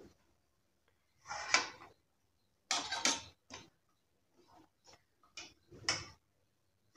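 A perforated metal skimmer scraping and clinking against a metal kadhai and a steel plate as fried pakoras are lifted out of the oil and tipped onto the plate. It comes as a string of short, irregular clatters.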